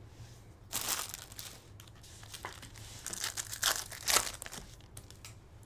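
Foil wrapper of a Topps Chrome Platinum Anniversary baseball card pack being torn open and crinkled by hand, in two spells of rustling: about a second in, and again from about three to four seconds in.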